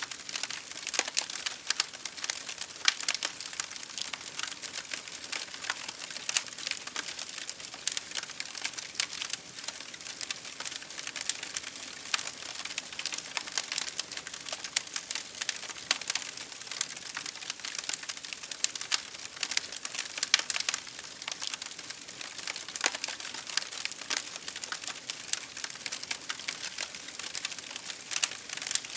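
Fire crackling: a dense, irregular run of small sharp snaps and pops over a soft hiss, with a few louder pops scattered through.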